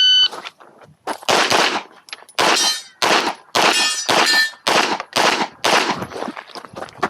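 Electronic shot timer's start beep, then a string of pistol shots about every half second, some with a ringing clang from steel targets being hit.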